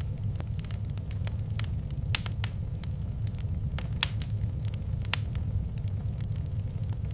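Wood fire crackling in a fireplace: irregular sharp pops and snaps, the loudest about two, four and five seconds in, over a steady low rumble of burning.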